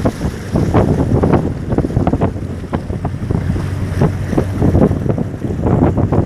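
River boat's outboard motor running with a steady low hum, under loud, irregular splashing of water and wind buffeting the microphone as the boat moves along the river.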